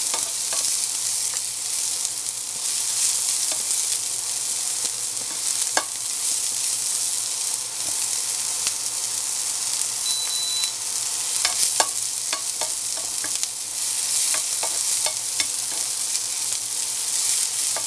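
Chopped red onion sizzling in hot oil in a nonstick frying pan, with a steady hiss, while a spatula stirs it and now and then clicks and scrapes against the pan.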